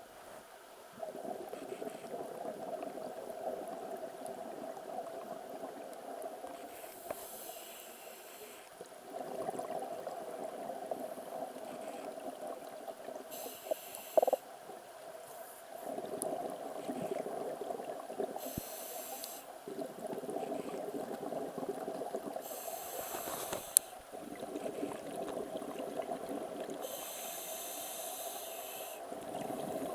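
A diver's breathing heard underwater: a short hissing inhalation every five to six seconds, with longer stretches of bubbling exhalation between.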